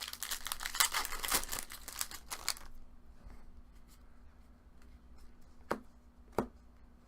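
Foil wrapper of a trading-card pack being torn open and crinkled for a couple of seconds, then two light taps of cards being handled near the end.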